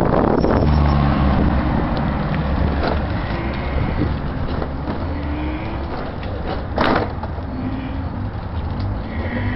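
Gio PB710 electric scooter being ridden: a steady low rumble of road and wind noise, with a faint electric-motor whine that rises in pitch several times as it speeds up. A single sharp knock about seven seconds in.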